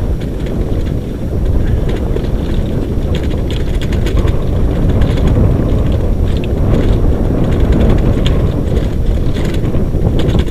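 Dryland sled-dog rig rolling fast over a sandy dirt trail behind a husky team: a steady loud rumble with wind on the microphone, and a stream of light rattling and ticking from the rig and the trail.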